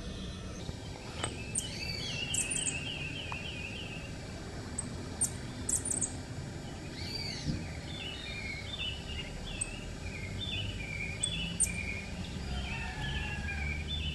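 Several birds calling and chirping over steady background noise, with a quick run of repeated trilled notes about two seconds in and short sharp high chirps scattered throughout.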